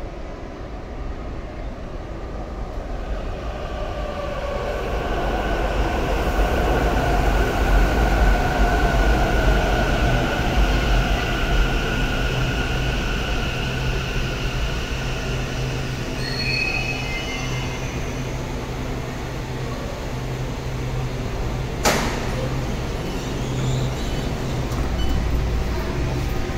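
Taichung MRT Green Line train pulling into the station, its wheels and motors whining in several tones that swell and sink in pitch as it brakes to a stop. About sixteen seconds in come short stepped chime tones, and about twenty-two seconds in a single sharp knock, over the train's steady low hum.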